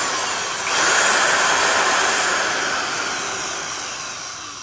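Porter-Cable #372 half-inch drill running free with an empty chuck, its motor and gears whining steadily. The whine swells again about a second in, then slowly fades as the drill winds down.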